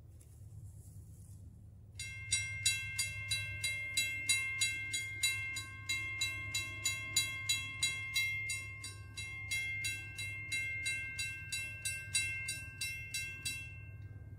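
Railroad grade-crossing warning bell ringing at an even rate of about three strikes a second. It starts about two seconds in and stops near the end, its ringing tone dying away just after the last strike. A faint low rumble runs underneath.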